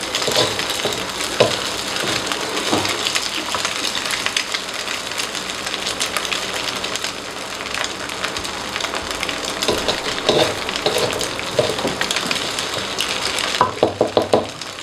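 Egg, garlic and chili sizzling in oil in an aluminium wok over a medium gas flame: a steady crackling frying sound. Now and then a spatula scrapes and clicks against the pan as the mixture is stirred.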